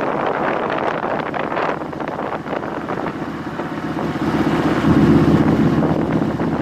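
Motorcycle engine running while riding, with wind buffeting the microphone. About four seconds in the engine note grows louder and stays up.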